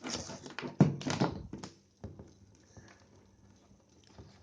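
Handling noise on a workbench: rattling and clicking of objects being moved, with one sharp knock a little under a second in. Then it goes quiet, leaving only a faint steady low hum.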